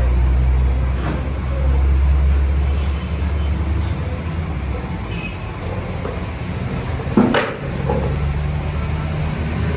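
A machine running steadily with a low hum, with a single sharp knock about seven seconds in.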